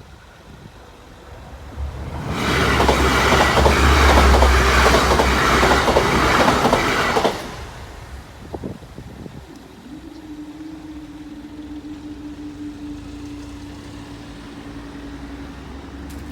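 A passenger train passing over the level crossing at speed: a loud rush of wheel and rail noise with a deep rumble and clicking wheels. It builds quickly, lasts about five seconds and stops abruptly. Then a quieter steady hum at one pitch holds to the end.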